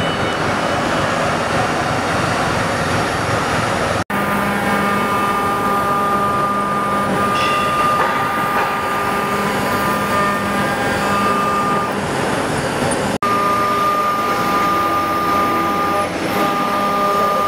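5-axis CNC router spindle milling a metal workpiece: a steady high whine over loud, continuous cutting and machine noise. The sound cuts out for an instant twice, about four and thirteen seconds in.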